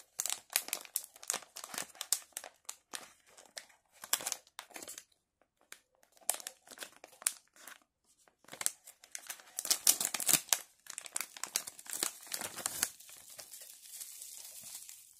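A foil-lined plastic blind-bag pouch crinkling and crumpling in the hands in irregular bursts with short pauses as it is worked open, the crackling loudest a little past the middle. Near the end it gives way to softer rustling of bubble wrap.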